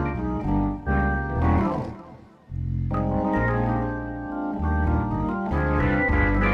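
MIDI accordion played through an amplified synth sound that swells with bellows pull: sustained chords over bass notes, dipping away about two seconds in, then coming back.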